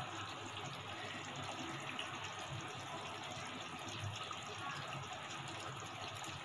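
Beef pieces simmering in a pot in their own released juices and mustard oil over medium heat, a steady bubbling sizzle as the meat braises (the kashano stage).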